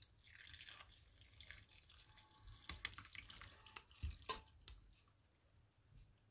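Faint splashing as a dandelion-flower infusion is poured from a stainless steel pot onto the soaked flowers in a cloth-lined strainer, thinning to a trickle near the end. A few sharp clicks come about halfway through.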